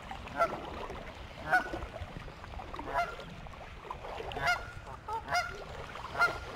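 A nesting pair of geese honking, short honks about once a second that come faster near the end: the geese are agitated by a person close to their nest.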